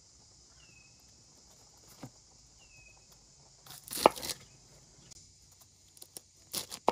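Chef's knife slicing through peeled pineapple on a wooden cutting board: a loud crunching cut about four seconds in, then several quick sharp knocks of the blade cutting down to the board near the end.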